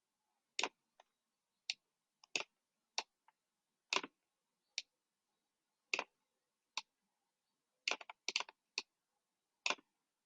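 Irregular sharp clicks from computer input as a design is edited, about sixteen in all, with a quick run of several clicks near the end.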